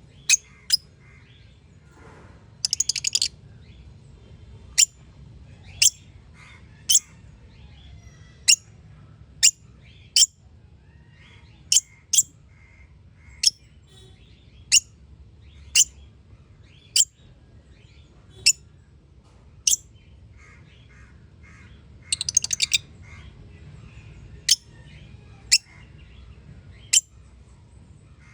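A small parrot giving sharp, high-pitched single chirps about once a second, broken twice by a quick chattering run of rapid chirps, once about three seconds in and again about three-quarters of the way through.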